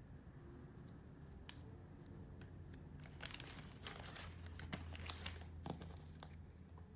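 Plastic packaging crinkling as it is handled: scattered crackles that thicken about three seconds in and die away near the end, over a faint steady low hum.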